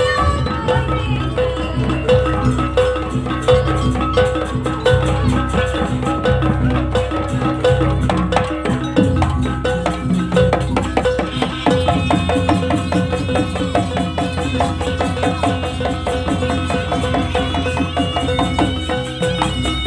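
Gamelan music accompanying a Jaranan dance: drums and gongs keep a steady fast beat under ringing metallophone tones. A higher melody line comes in about halfway through.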